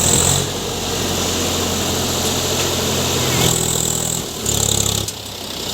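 Heavy diesel engine running under varying load. It eases off about half a second in, briefly surges louder a little after four seconds, and drops again about five seconds in.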